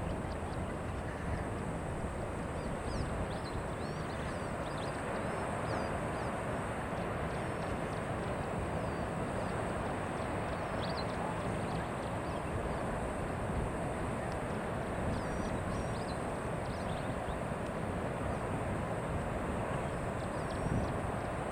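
Steady rushing outdoor noise, mostly wind on the microphone, with faint high bird chirps scattered throughout.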